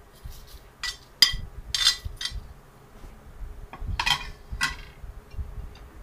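A metal spoon clinking and scraping against a plate and a glass mixing bowl while fried leaves are knocked off into the bowl: about six sharp, ringing clinks, loudest in the first half.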